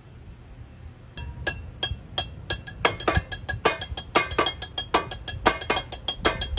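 Drumming with wooden sticks on an improvised kit of metal pots, pans and lids. A few single strikes about a second in, then a fast, steady beat, each hit on the metal leaving a short ringing tone.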